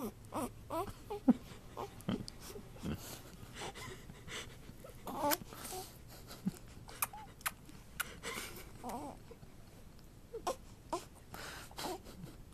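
Young infant making short, scattered vocal sounds and wet sucking clicks while mouthing and sucking on an adult's nose.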